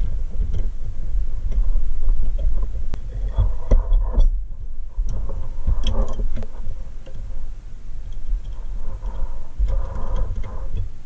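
Hands handling a pressed-steel Tonka toy forklift, a C-clamp and small parts: scattered light clicks and taps of metal on metal, the clearest around 4 and 6 seconds in, over a steady low rumble of handling noise.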